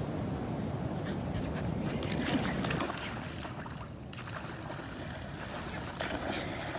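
A dog panting with a brief whimper about two seconds in, over a low rumble of wind and surf.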